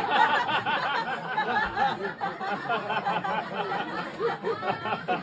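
Small comedy-club audience laughing and chuckling, the laughter gradually dying down.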